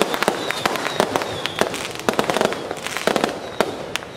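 Firecrackers going off in irregular sharp cracks, several a second, with a few short high-pitched tones now and then.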